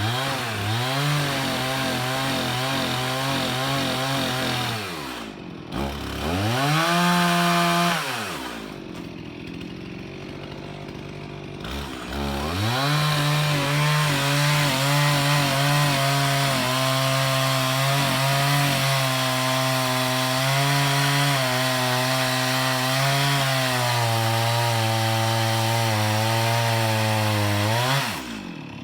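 Two-stroke chainsaw run up to full throttle and cutting into a tree trunk. It drops back to idle about five seconds in, revs briefly, idles again, then holds a long cut from about twelve seconds until it falls back to idle near the end.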